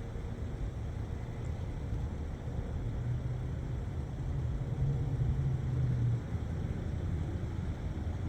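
Faint steady tone of distant Sentry 16V1T-B outdoor warning sirens about eight miles away, fading out within the first couple of seconds. It sits under a low outdoor rumble that swells around the middle.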